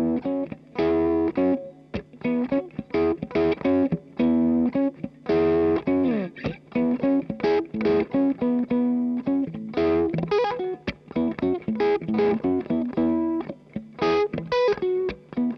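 1983 Tokai Stratocaster copy played through a Kool Amplification Blue Sky 35-watt 6L6 valve amp: a run of fast picked single-note lead phrases, with a note sliding down in pitch about six seconds in.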